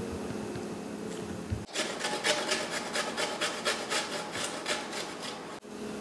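Rhythmic rasping strokes, about four a second, of food being grated on a fine kitchen grater. They start abruptly a couple of seconds in and stop abruptly near the end.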